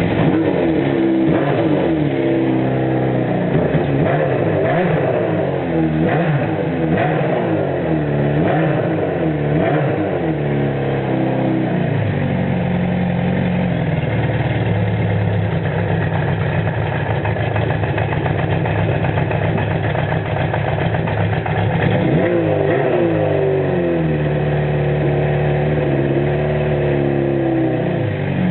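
1974 Honda CB500 Four's inline four-cylinder engine running through a 4-into-1 exhaust, blipped up and down repeatedly for about the first twelve seconds, then settling to a steady idle, with another couple of revs a little past twenty seconds before idling again. The engine has just been recommissioned with cleaned carburettors, which the owner says still need setting up, and a sticking throttle cable.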